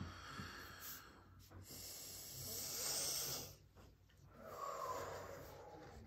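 Slow, heavy breathing with a snore-like rasp: three long breaths, the loudest in the middle.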